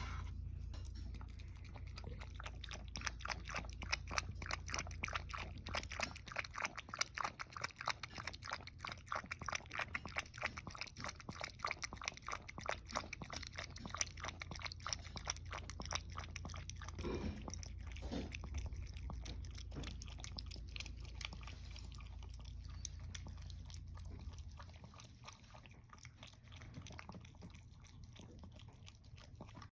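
Toy poodle lapping goat milk with its tongue, a long run of rapid wet clicks that fades near the end.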